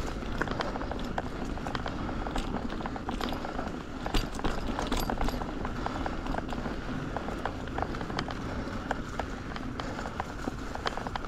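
Orbea Occam H20 mountain bike rolling over a rough, stony trail: a steady rush of tyre noise with many irregular clicks and rattles from stones and the bike.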